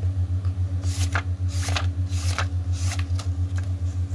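Pages of a small spiral-bound paper notebook being leafed through: a series of quick papery flicks from about a second in to near the end. Under them runs a steady low hum that pulses rapidly, the loudest sound throughout.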